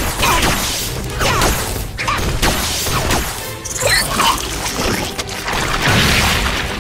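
Action music from a cartoon soundtrack, mixed with fight sound effects: crashes and impacts, and several short squealing glides in pitch.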